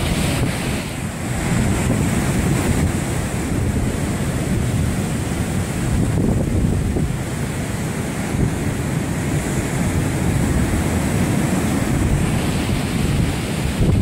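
Atlantic surf breaking and washing on a beach in a steady wash of waves, with wind rumbling on the microphone.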